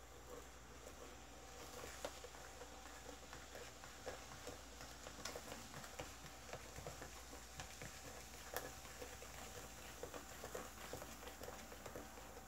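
Spoon stirring sugar and baking soda into a little water in a small plastic cup to dissolve them: faint, irregular light clicks and gritty scraping.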